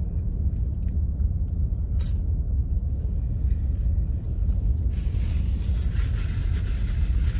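Steady low rumble inside a parked car's cabin, with a single click about two seconds in. From about halfway through, a paper napkin rustles as it is picked up and used.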